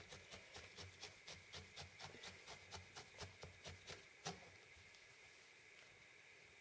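Felting needle jabbing repeatedly into wool: faint, even jabs about four a second, ending with one sharper jab about four seconds in.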